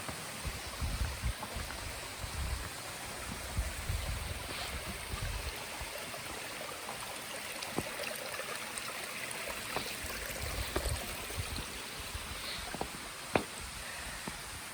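Steady rush of flowing mountain stream water, with low rumbling bumps in the first few seconds and a few sharp knocks, the loudest about 13 seconds in.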